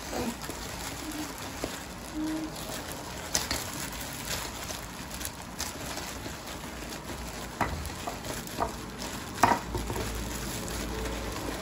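Oiled medium semolina being rubbed by a plastic-gloved hand against a stainless steel bowl: a steady grainy rustle, with a few sharper knocks in the second half. The grains are being worked with oil to soften them before steaming.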